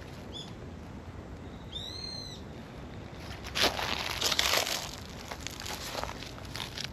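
Tabby cat calling as it comes up to be petted: a short high chirp, then one high-pitched meow that rises and falls. About three and a half seconds in comes the loudest part, a burst of rustling and handling noise close to the microphone, lasting about a second.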